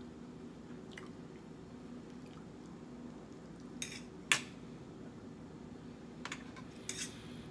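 Quiet eating sounds as a mouthful of cheesy spaghetti is chewed, with a handful of short sharp clicks; the loudest comes about four seconds in.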